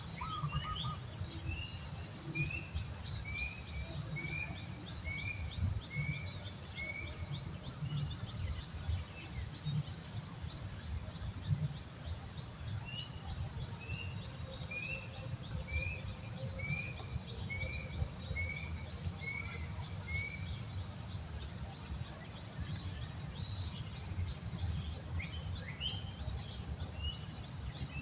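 Insects droning on one steady high tone, while a bird calls in two runs of short repeated notes, about two a second. A low rumble runs underneath.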